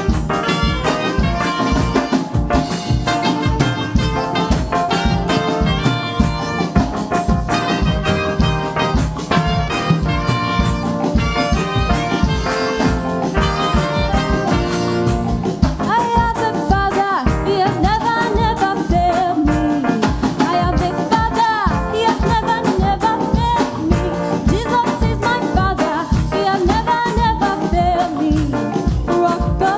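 Upbeat live gospel praise music with a steady drum beat under full band chords. A singing lead melody comes in about halfway through.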